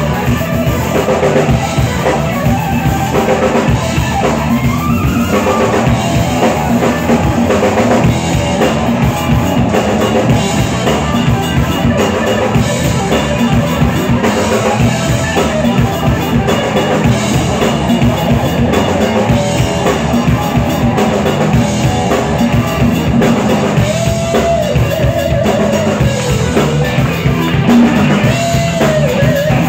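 Live rock band jamming: a drum kit keeping a steady beat under electric guitar and keyboard, with a lead line whose notes bend up and down in pitch, once early and twice near the end.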